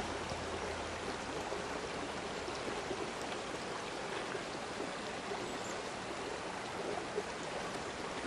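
Steady, even rushing outdoor noise with a few faint rustles, and a small knock about seven seconds in.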